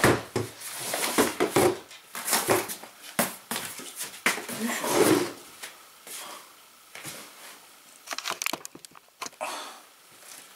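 Folding camp cot being opened out: its metal frame clicking and knocking as the bars spread and lock, with the fabric bed rustling. The clicks and knocks come thickest in the first half, then thin out to a few scattered clicks.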